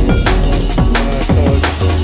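Electronic music with a driving drum beat, deep bass notes and kick drums that drop in pitch.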